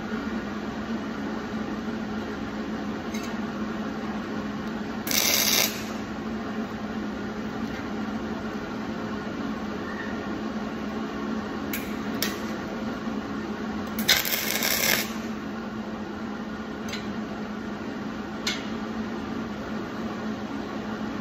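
Two short MIG welding tacks, each a burst of arc crackle lasting under a second, about five seconds in and again about fourteen seconds in. A steady machine hum runs underneath, with a few light clicks between the tacks.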